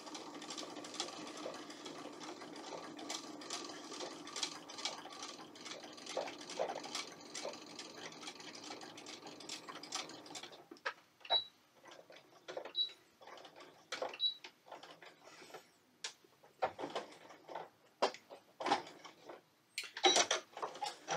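Electric sewing machine stitching steadily through the thick layers of a quilted pot holder for about ten seconds, then stopping. Scattered clicks follow, with three short high beeps a second or so apart.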